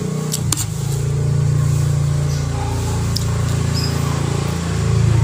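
Motorcycle engine running with a steady low drone, growing louder near the end as it comes closer.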